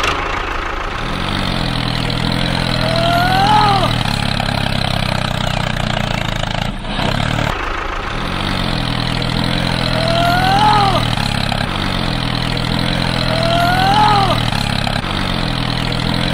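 Engine sound of a DIY mini bulldozer model: a steady running drone, with a short rising whine about every few seconds.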